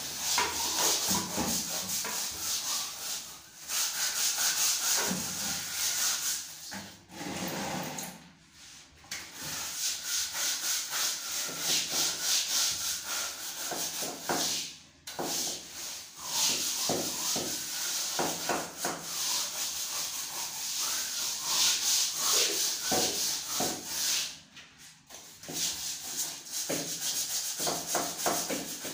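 Long-handled floor scrubber scrubbing a tiled floor in quick back-and-forth strokes, a steady scratchy rasp that stops briefly a few times.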